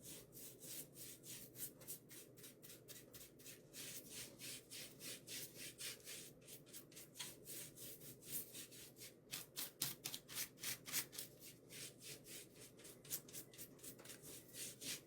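Quick, faint back-and-forth rubbing strokes on a wooden candle shelf, about three a second, as the painted wood is worked over to look aged.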